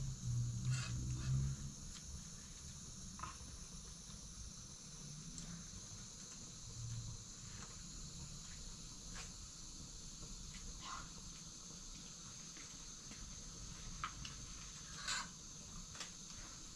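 Sparse dry crackles of pieces of dry flatbread being broken by hand, a few seconds apart, over a steady faint high hiss. A brief low hum sounds in the first second and a half.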